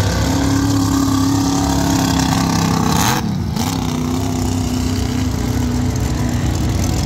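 Monster truck engines running loud at a steady, high engine speed, with a brief break in the sound about three seconds in.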